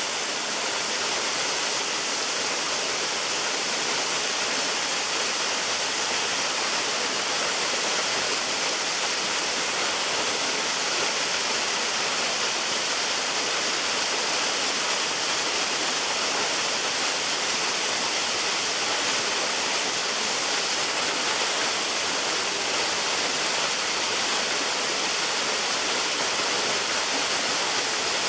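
A waterfall rushing steadily, a dense, even roar of falling water.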